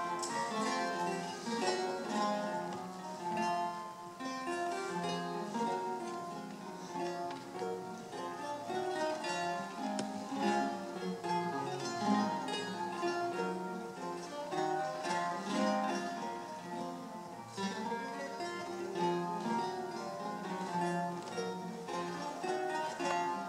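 Eight-course Renaissance lute built by Joel van Lennep, played solo: a continuous stream of plucked notes, melody over bass in several voices.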